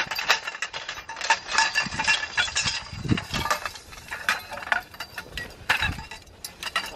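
Metal tent-frame poles clinking and rattling against each other as they are carried and handled, with a couple of duller knocks about three and six seconds in.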